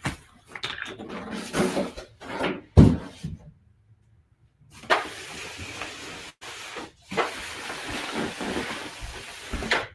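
Handling noise from a large styrofoam shipping box: the foam lid rubs and knocks as it is lifted off and set down with a thump about three seconds in. From about five seconds in, a steady rustle of the plastic wrap around the bust as it is handled.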